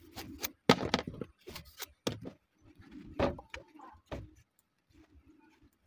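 A large knife slicing and shaving the soft husk of a young green coconut: a series of sharp, uneven cutting strokes and scrapes, the last about four seconds in.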